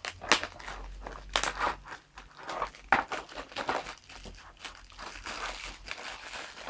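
Plastic shrink-wrap on a DVD case being torn and peeled off by hand, crackling in irregular short crinkles.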